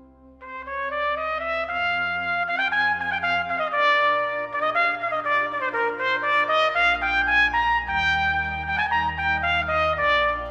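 Trumpet playing a melody over sustained low organ notes; the trumpet comes in about half a second in after a short rest.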